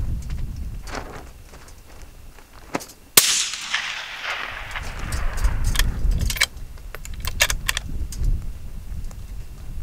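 A single shot from a Ruger American Gen II bolt-action rifle in .223 Remington about three seconds in: a sharp crack with a long echo that fades over about two seconds. A few sharp clicks follow a couple of seconds later.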